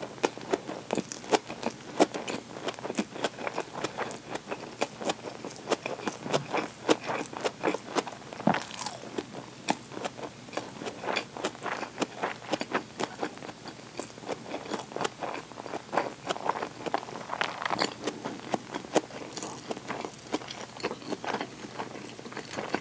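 A person chewing food with the mouth closed: a dense, uneven run of small wet mouth clicks and crunches, several a second.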